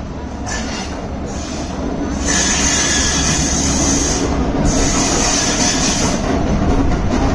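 Passenger train rolling slowly along the track with a steady low rumble, getting louder from about two seconds in. Over the rumble come stretches of high-pitched wheel squeal.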